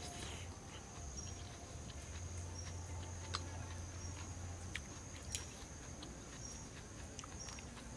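A steady high insect drone, with a metal spoon clicking lightly against a coconut-shell bowl and a serving plate, most clearly twice.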